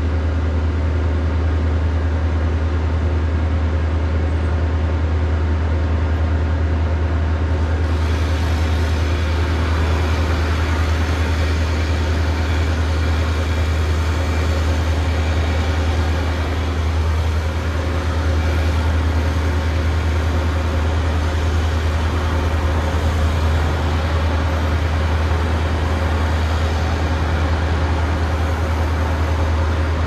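Bucket truck's engine running steadily at idle, a deep constant hum.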